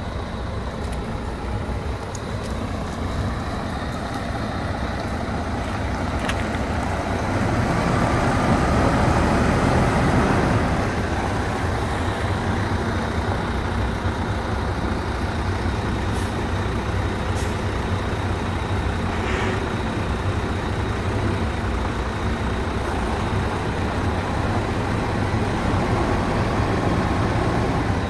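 Heavy truck's diesel engine idling steadily, a low continuous rumble, with a louder swell about eight to eleven seconds in.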